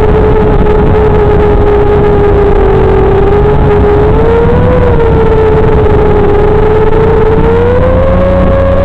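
FPV quadcopter's electric motors and propellers whining steadily, heard through the onboard camera's microphone, over a rough rushing noise; the whine climbs in pitch near the end.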